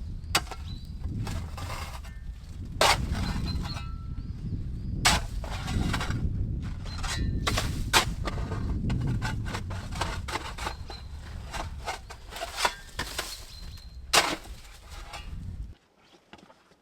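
Irregular sharp hammer strikes with a short metallic ring, several of them loud, over a steady low rumble. Everything stops abruptly near the end.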